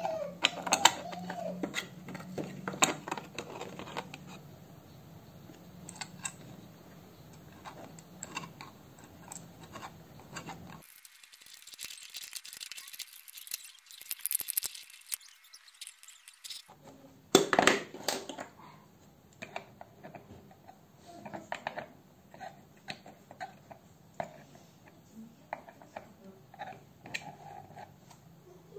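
Plastic parts of a small electrical box being handled and fitted together: scattered clicks, taps and scrapes of the plastic lid against the box, with the loudest clatter about 17 seconds in.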